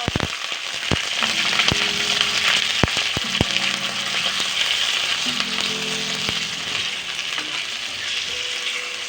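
Food frying in hot oil in a pan, a steady sizzle, with a utensil knocking against the pan a handful of times in the first few seconds as it is stirred.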